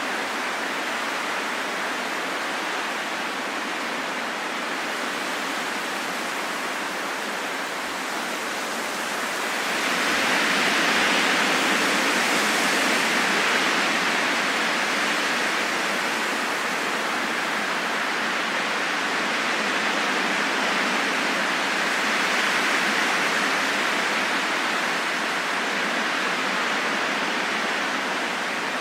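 Wind blowing as a steady rush, swelling into a stronger gust about ten seconds in, then easing, with gentler swells later.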